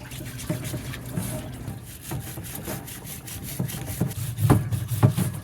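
Brush scrubbing a greasy steering knuckle: irregular rasping strokes that get heavier near the end, over a low steady hum.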